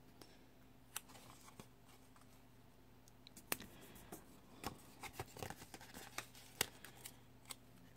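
Faint paper handling: a sticker sheet moved about and stickers pressed onto a planner page, heard as scattered small taps, clicks and rustles over a low steady hum.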